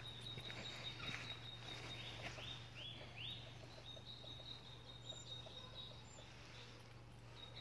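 Woodland birds singing: a high trill held on one pitch through most of the stretch, with a run of about five swooping notes early on. Faint footstep ticks on a gravel path underneath.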